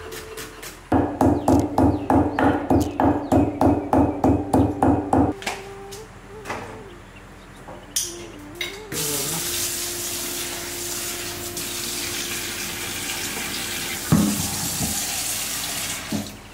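Kitchen knife chopping shallots on a wooden cutting board, fast even strokes about four a second for some four seconds. About nine seconds in, a tap starts running steadily into a steel sink and cuts off near the end.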